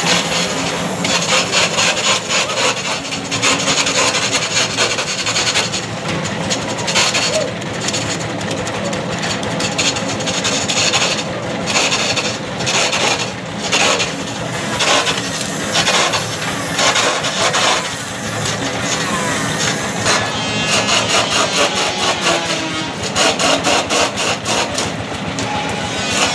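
Homemade wood lathe turning a coconut-wood (glugu) log: the cutting tool scrapes and shaves the spinning wood with a continuous rapid rasping, over a faint steady machine hum.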